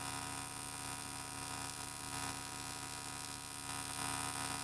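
Steady electric buzz of an AC TIG welding arc on aluminium, from a Yeswelder 250P AC/DC inverter welder.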